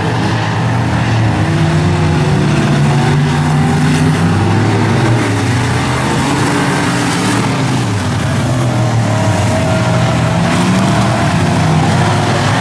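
Several dirt-track modified race cars' V8 engines running at racing speed, overlapping, their pitch rising and falling as the cars accelerate and lift.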